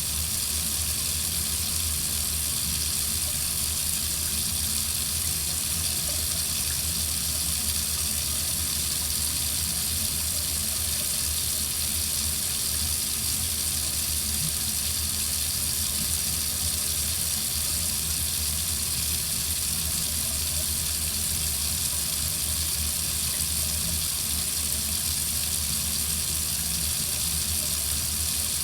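Water running steadily from a tap into a sink, an even rushing hiss with no change in flow.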